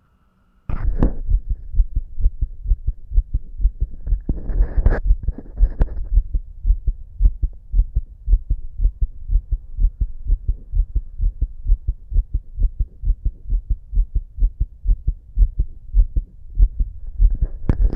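Fast human heartbeat heard through a stethoscope on the chest: a quick, even run of low lub-dub thumps. It cuts in just under a second in, and there are two brief, noisier scrapes about a second in and around five seconds in.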